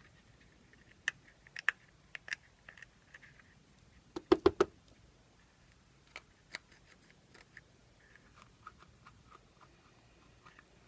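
Cured resin being peeled and picked out of a small silicone mixing cup by hand: scattered light clicks and crackles, with a quick cluster of louder clicks about four seconds in.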